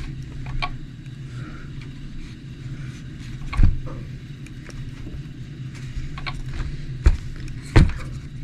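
A few sharp knocks and clicks from the plastic RC truck being handled and set down after its front shock spacers were changed, over a steady low hum. The three loudest knocks fall near the middle and towards the end.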